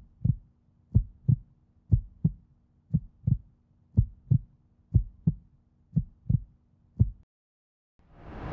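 Heartbeat sound effect: paired low thumps in a slow, even rhythm, about one beat a second, stopping about seven seconds in. A short rising whoosh follows near the end.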